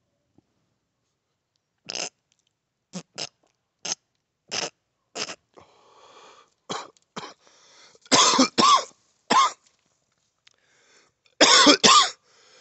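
A series of short, harsh coughs, about a dozen, irregularly spaced: single ones at first, then louder pairs in quick succession from about eight seconds in.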